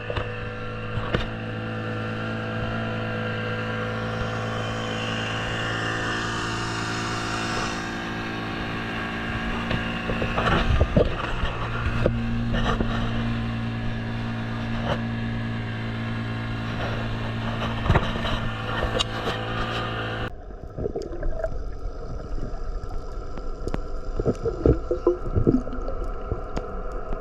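Boat engine running at a steady pitch. About twenty seconds in it cuts off suddenly, giving way to gurgling water and scattered knocks.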